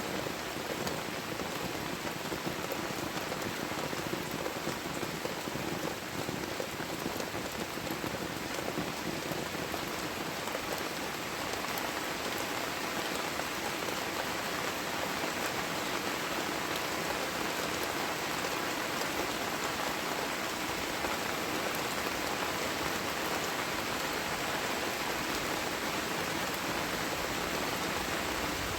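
Heavy tropical rain falling steadily, an even hiss of drops hitting surfaces.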